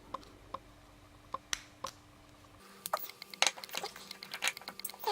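Metal lock-picking tools clicking in a Ruko pin-tumbler lock: a few separate clicks, then from about halfway a quick run of small clicks and scratches as the pick works the pins.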